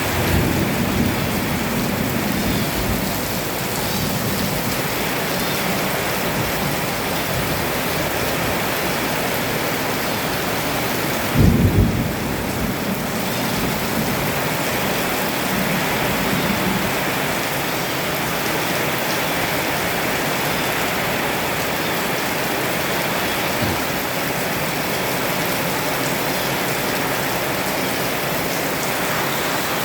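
Heavy rain pouring steadily, with thunder rumbling in the first few seconds and one loud, sudden thunderclap about eleven seconds in, followed by a softer rumble.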